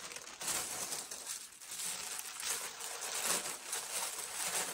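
Shoe-box packaging rustling and crinkling unevenly as it is handled and unfolded.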